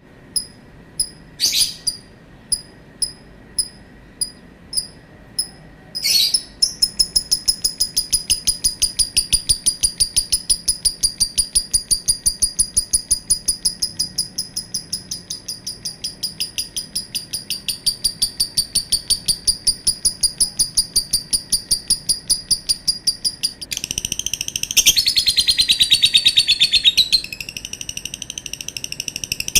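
Lovebird calling. A few single high chirps are followed, about six seconds in, by a long, fast, unbroken run of high chirps, the long call that lovebird keepers prize. Near the end it shifts to a denser, lower, rougher warble.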